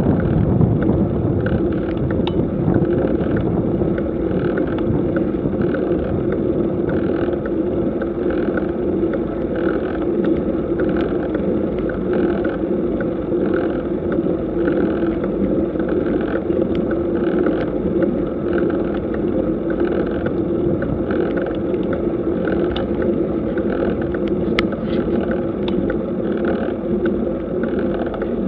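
Bicycle climbing slowly, recorded from the bike: steady wind and road noise on the microphone, with a soft rhythmic pulse about one and a half times a second.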